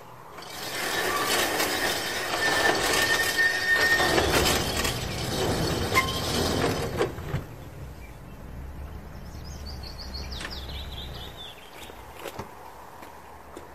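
Large sectional garage door rolling shut along its tracks, rattling with a squeal, and stopping abruptly about seven seconds in.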